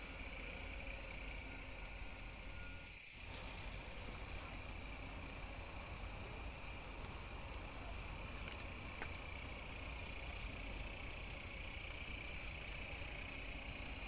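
Insects, likely crickets, keep up a steady high-pitched chorus. A fainter chirp repeats above it through the first half.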